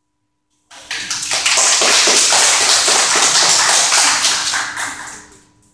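Applause from a small group of people, starting suddenly about a second in and fading out near the end.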